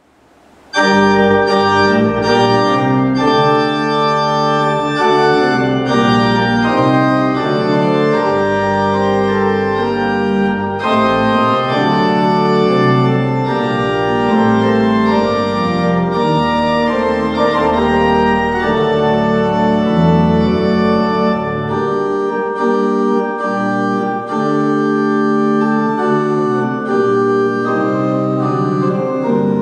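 Church pipe organ playing solo in sustained full chords, starting about a second in after a brief silence.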